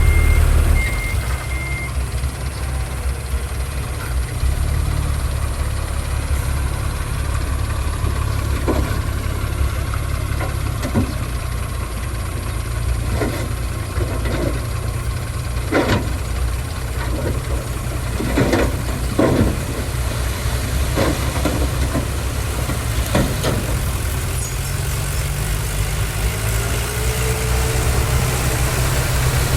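Heavy diesel engines of construction machinery running at a steady low drone, with a truck's reversing beeper for the first two seconds. Scattered metallic knocks and clanks come through the middle, and the engine note rises near the end.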